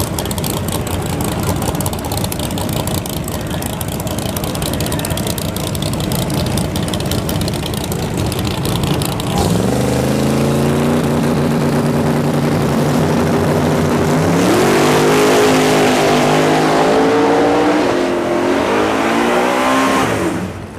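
Drag race cars rumbling at the line, then launching down the strip: about nine seconds in a loud engine note starts and climbs in steps as the car shifts through its gears, dropping away near the end.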